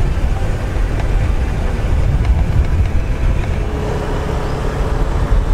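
Motor scooter riding along a road: its small engine running under a heavy, steady rumble of wind buffeting the microphone.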